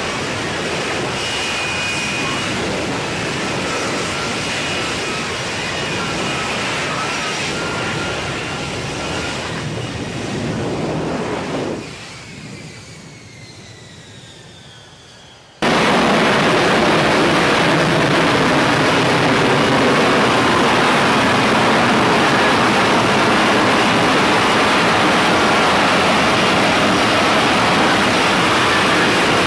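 F-35B Lightning II's F135 jet engine roaring with a steady high whine as it comes down in a vertical landing. About twelve seconds in, the roar drops away and the whine slides down in pitch as the engine throttles back after touchdown. A few seconds later a sudden cut brings in another F-35B's engine, a loud, steady jet roar as it hovers.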